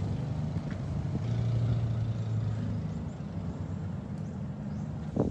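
Steady low drone of a motorized fishing boat's engine out at sea, swelling a little between about one and three seconds in. A single sharp knock near the end.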